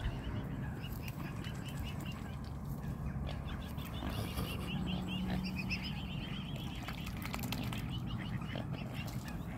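Swan cygnets peeping: a rapid run of short, high chirps, several a second, over a low rumble.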